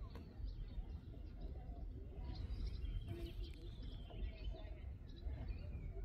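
Outdoor ambience: a steady low rumble with faint, scattered bird chirps over it.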